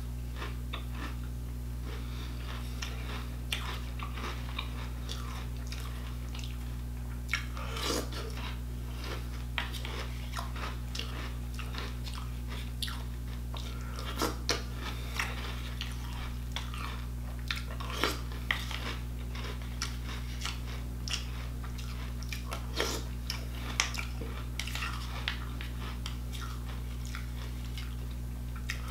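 Close chewing of a mouthful of nearly stale Cinnamon Toast Crunch cereal, with short, irregular crunches scattered throughout.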